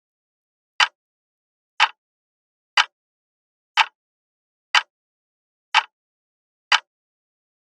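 Alarm clock ticking, one short sharp tick a second, starting about a second in after silence.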